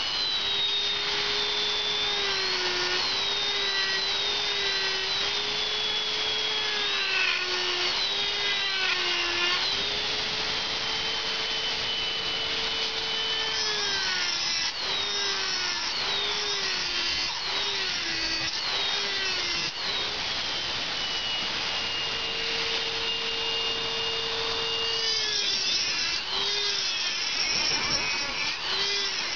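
Small hand-held rotary tool running at high speed with a lighter-wheel cutter mounted, a steady whine whose pitch dips and recovers over and over, as when the cutter is loaded against the work.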